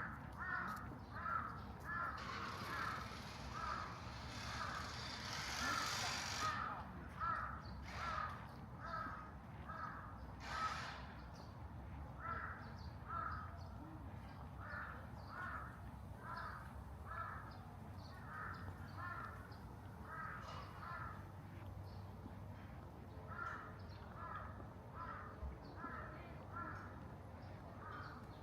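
A bird calling over and over in short, harsh notes, about two a second, with brief pauses; a hissing noise rises in the first few seconds and fades out.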